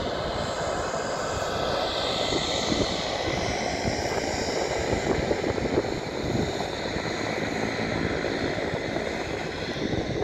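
Aircraft engine running steadily: a continuous roar with a higher whine that slowly drifts in pitch.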